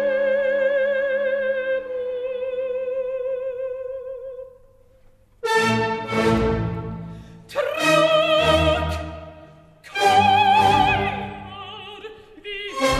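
Operatic music as a soundtrack: a singer holds a long, wavering note that fades out about four seconds in. After a short lull, loud swells of voice and orchestra come in four times, each dying away.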